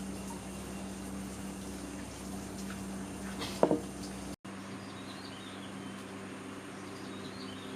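A steady low hum with one sharp knock about three and a half seconds in. After an abrupt cut, faint bird chirps sound over outdoor background noise.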